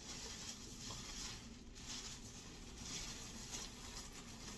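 Faint, uneven rustling of fabric as pairs of gym shorts are handled and sorted through, swelling and fading several times.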